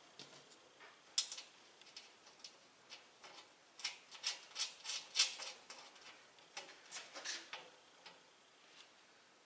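Light metal clicks and clinks of bolts, washers and nuts being fitted by hand into the steel panels of a welding cart, hardware left finger tight. A single sharp click about a second in, then a quick run of ticks around the middle.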